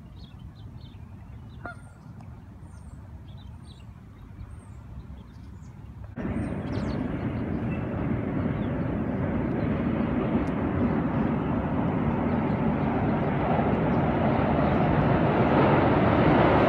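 Birds calling over a quiet background for the first six seconds. Then, after a sudden jump in level, a MARC commuter train crossing the steel truss bridge overhead: a steady rushing rumble that keeps getting louder as it comes on.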